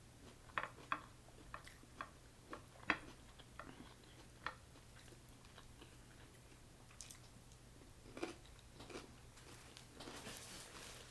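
Soft chewing of snow crab meat with scattered light clicks and crackles as the crab legs are picked apart by hand. Near the end, a paper towel rustles as the hands are wiped.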